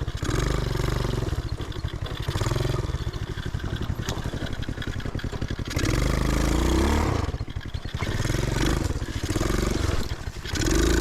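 Small 125cc single-cylinder engine of a homemade reverse trike, revving up and down repeatedly as it is ridden over a rough, bumpy trail, with rattling from the machine.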